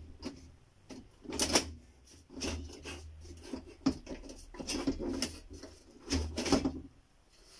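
Metal front bezel of an LCD TV panel being pried and worked loose by hand: irregular clicks, scrapes and rattles, with a sharp click about four seconds in.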